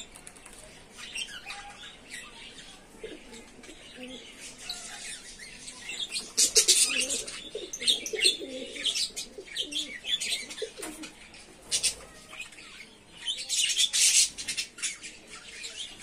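Caged budgerigars and finches chattering and chirping. A dense run of short high calls is loudest about six to eight seconds in and again near the end, with lower warbling notes under the middle stretch.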